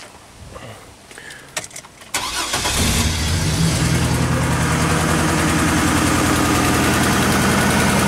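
2002 Chevrolet Trailblazer engine starting about two seconds in and settling into an idle. It is misfiring, with one ignition coil not firing.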